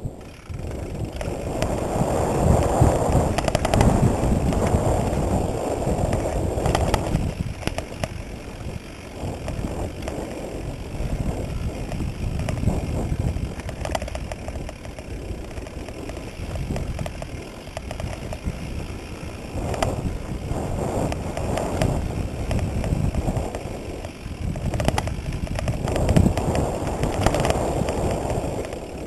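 Mountain bike rolling down a dirt singletrack: tyre noise on dirt and rattling knocks from the bike over bumps, under heavy wind rush on the microphone that swells and eases with speed.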